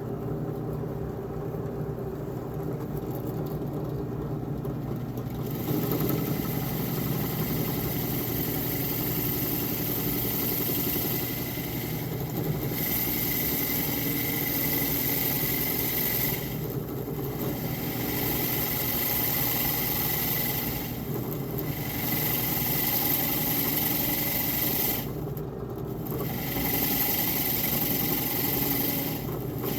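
An electric power tool's motor running steadily. From about five seconds in, a high hiss rides on top of it and cuts out briefly every few seconds.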